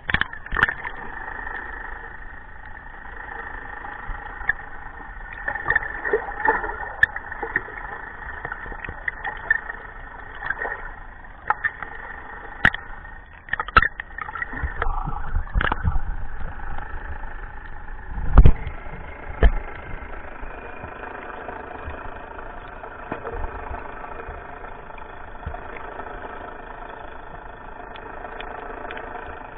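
Muffled sound through an underwater camera housing: a boat engine's steady drone carried through the water. Scattered knocks and thumps on the housing, the loudest about eighteen seconds in.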